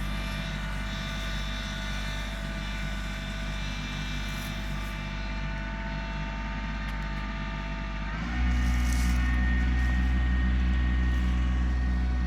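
Kubota LX2610 compact tractor's three-cylinder diesel engine running steadily. About eight seconds in it is throttled up, becoming louder and higher in pitch, as the tractor takes up the pull on the cable to the dead tree.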